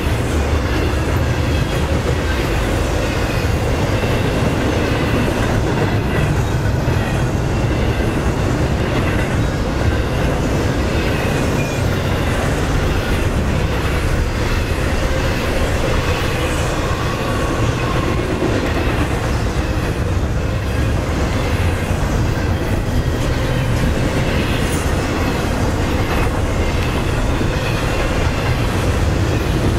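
CSX double-stack intermodal freight train rolling past close by: a steady loud rumble and clatter of its steel wheels on the rails, with faint thin wheel squeals now and then.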